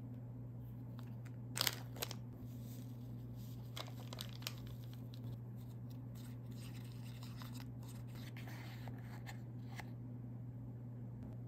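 A foil-lined candy-kit powder packet torn open with a couple of sharp crinkly rips about two seconds in. Then a few light ticks, and a small plastic spoon scraping and stirring the bun mix and water in a plastic tray. A low steady hum sits underneath.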